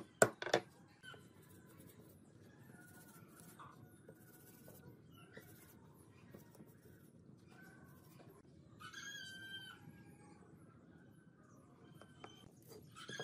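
A hammer strikes a pine strip frame two or three times in quick succession at the start. Then it is quiet, with faint chirps and a single animal call about nine seconds in.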